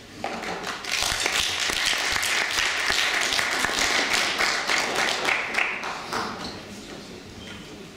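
Audience applauding; the clapping builds within the first second and dies away after about six seconds.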